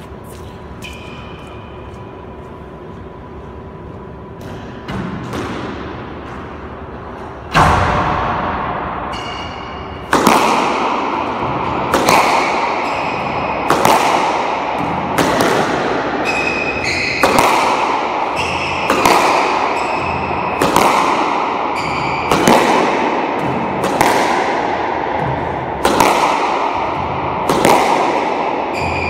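Squash ball being hit repeatedly in solo straight-drive practice: sharp racket and wall impacts that echo around the court. The first comes about seven seconds in, then one about every two seconds.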